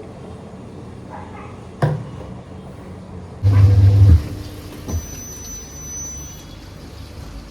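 Washing machine being worked: a knock about two seconds in, a short loud low hum about three and a half seconds in, then a long high beep over a steady low rumble.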